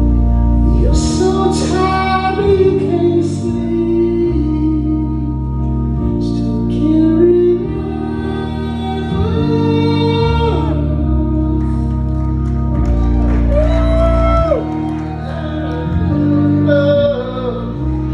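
Live band music: held organ-like keyboard chords changing every second or two, with a singing voice over them.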